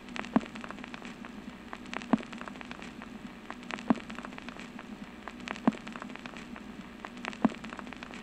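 Steady crackle and hiss over a low hum, with a sharp pop that repeats evenly about every second and three quarters, like worn record surface noise.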